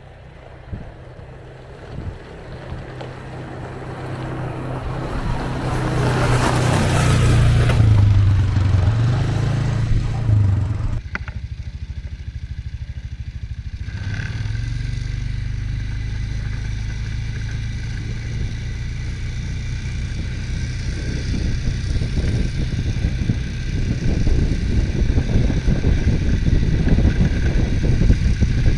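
ATV engine running under throttle, building up over the first several seconds with a rushing noise on top. It drops off sharply about eleven seconds in as the throttle is let off, then picks up again and grows louder toward the end.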